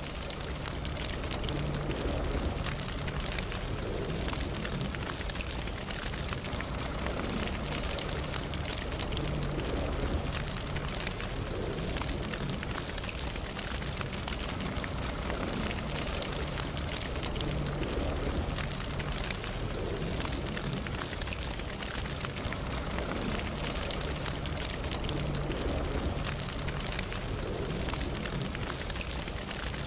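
Campfire burning: a steady low rush of flames with a constant scatter of small crackles and pops from the burning wood.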